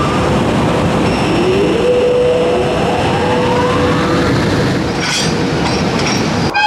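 EH500 electric locomotive hauling a freight train past at speed: loud steady running and wheel noise, with the locomotive's motor whine rising in pitch twice. A train horn cuts in just before the end.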